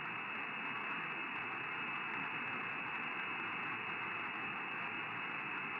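Steady static hiss from a CB receiver tuned to the 11-metre band, heard in a gap between transmissions with no station on the frequency. The hiss is even and cut off sharply above the voice range.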